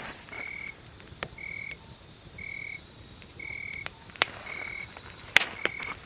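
A frog calling with short, steady high notes about once a second, with a few sharp cracks in between.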